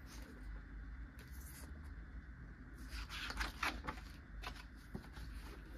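Paperback picture book pages being handled and turned: a few soft paper rustles and scrapes, over a low steady hum.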